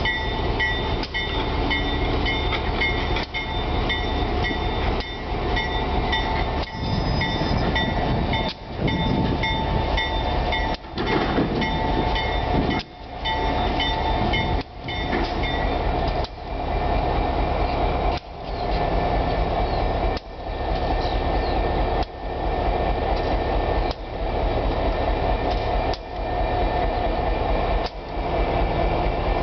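A slow-moving diesel freight locomotive rumbling past at close range, its engine running steadily over the rail noise, with a level that dips sharply about every two seconds. A bell rings in rapid, even strokes through the first half, then stops.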